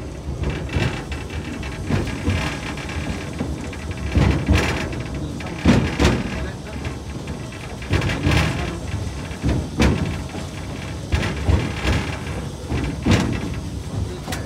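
A narrow-gauge train's open carriage rolling along the track: a steady rumble, with the wheels knocking over rail joints every second or two, often in quick pairs.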